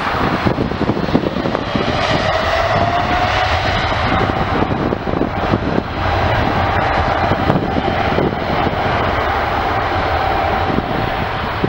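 Jet airliner engines running loud as the plane passes: a steady roar with a whine that rises a little in pitch over the first few seconds, then holds.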